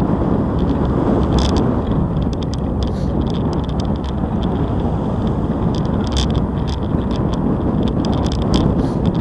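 Bicycle rolling along a brick-paved cycle path: a steady rumble of tyres on the paving mixed with wind on the microphone, with several short rattles from the bike over bumps in the bricks.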